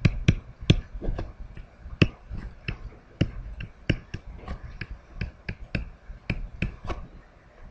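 Pen stylus tapping and clicking on a tablet screen while handwriting: an irregular run of sharp clicks, about three or four a second, as each letter stroke is made.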